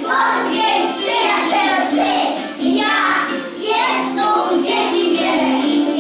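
A group of young children singing a song together in unison over a musical accompaniment.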